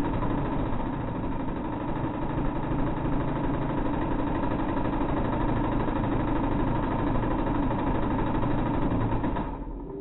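A steady mechanical drone, running evenly and fading out near the end.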